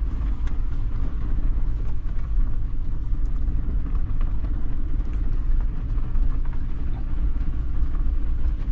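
Maruti Suzuki Jimny's 1.5-litre four-cylinder petrol engine running steadily with a low rumble as the fully loaded car drives up a hill track.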